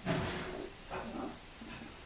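Sleeping three-week-old puppies making soft grunts and whimpers, with a short breathy burst right at the start and another about a second in.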